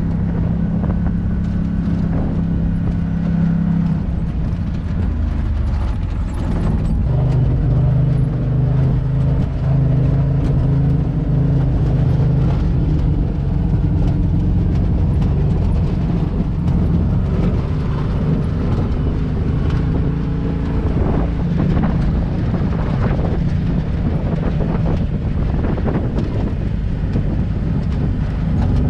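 UTV engine running under way on a rough trail, its pitch dropping about four seconds in and changing again around seven seconds in, with scattered knocks and rattles.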